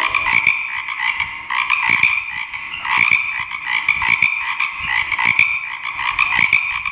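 A chorus of frogs croaking, many calls overlapping.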